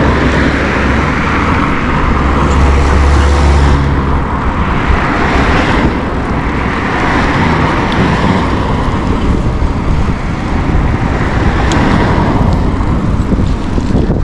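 Wind rushing over the microphone of a rider on a moving bicycle, mixed with the noise of cars on the road, swelling and easing as vehicles pass; a heavy low rumble about two to four seconds in.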